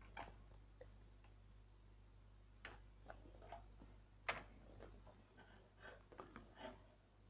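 Near silence: faint, irregular clicks and small taps, the loudest about four seconds in, over a steady low hum.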